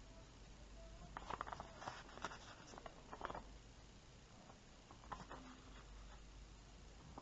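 Pages of old paper booklets being turned and handled: soft paper rustles in a few short bursts, a second or two apart.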